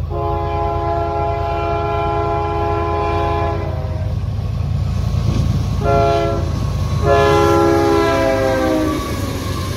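Diesel freight locomotive's air horn sounding a chord: a long blast of nearly four seconds, a short blast, then a louder long blast whose pitch drops slightly near its end as the locomotives pass. Under it runs the steady low rumble of the diesel engines and train.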